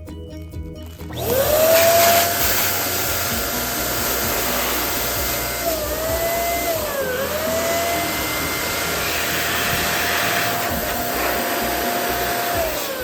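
Electric balloon inflator running: its motor starts about a second in with a quickly rising whine and a rush of air, then holds a steady pitch, sagging briefly twice in the middle, and winds down near the end as it is switched off.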